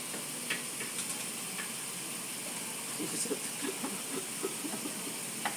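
Steady background hiss with a few faint clicks, and faint murmuring voices in the second half; a sharp click right at the end.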